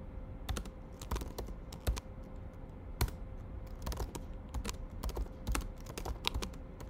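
Typing on a computer keyboard: irregular keystrokes, about two or three a second, with short pauses between bursts, over a faint steady hum.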